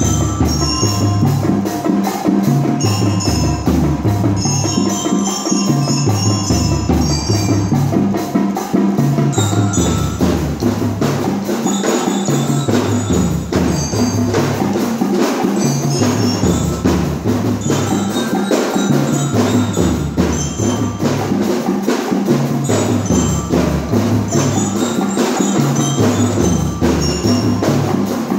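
Children's drum band playing: bell lyres (glockenspiels) carry a bright melody over a steady, evenly repeating beat from bass and marching drums.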